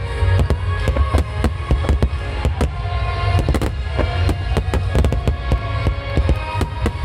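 Aerial fireworks bursting in a dense, continuous run of cracks and bangs over a deep rumble, with music playing underneath.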